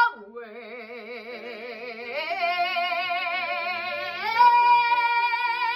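A woman singing one long held note with wide vibrato, sliding up in pitch about two seconds in and again about four seconds in, where it gets louder.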